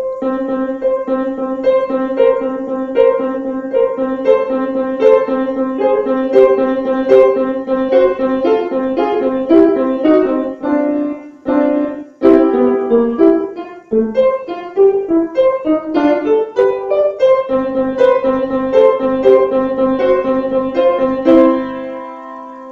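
Upright piano played solo: a short piece of repeated struck notes over sustained tones, ending on a chord that is left to ring and fade.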